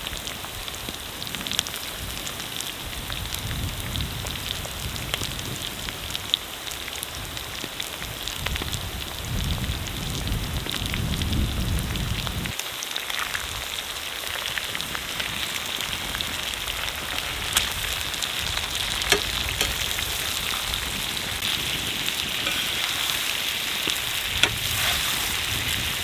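Beef, fried potatoes and freshly added sliced onion sizzling in a large pan over a wood fire: a steady frying hiss with scattered sharp pops and crackles.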